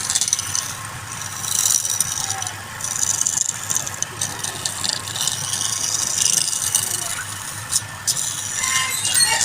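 Wood lathe running with a steady low hum while a turning tool cuts the spinning wood, giving repeated hissing, scraping bursts about a second long.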